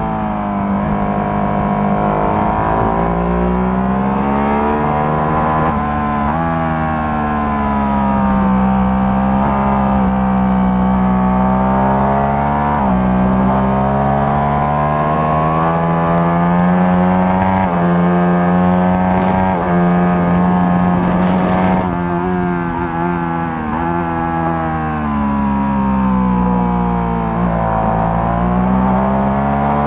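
Ducati Panigale 1199's 1198 cc Superquadro V-twin on a Termignoni exhaust, heard from on board at racing speed. The engine note climbs hard through the gears with a drop in pitch at each change, then falls away as the bike brakes and changes down for corners, several times over.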